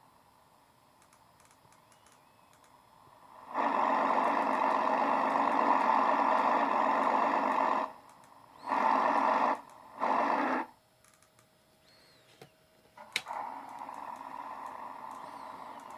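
Synthetic engine sound from a TBS Micro sound unit, played through its small speaker in bursts of steady, buzzy pitch. The first burst lasts about four seconds and is followed by two short ones. After a click about thirteen seconds in, it plays again at a lower volume.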